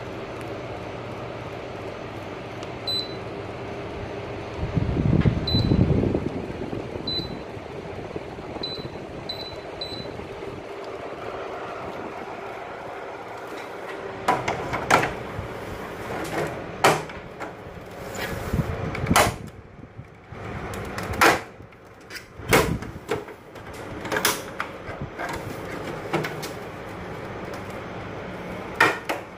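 Steady running noise from a Sharp AH-AP9HHY split air conditioner, with six short high beeps over the first ten seconds and a low thump about five seconds in. The steady sound drops away in the second half, replaced by a string of irregular sharp clicks and knocks.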